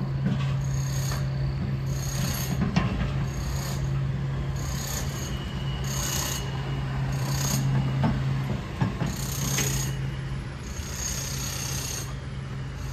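Footsteps scuffing on the ground at a walking pace, about one step a second, over a steady low hum.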